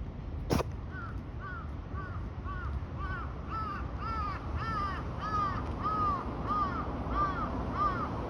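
A sika deer sneezes once about half a second in: a short, sharp burst of breath. Then a crow caws over and over, about two caws a second, the caws growing louder toward the end.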